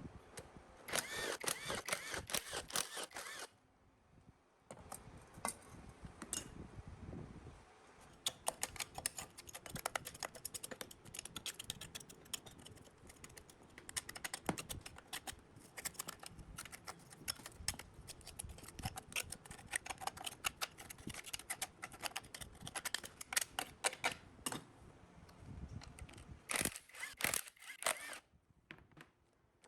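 Hand tools working on old diesel engine parts: quick light clicks and taps in uneven runs, with a stretch of scraping in the first few seconds.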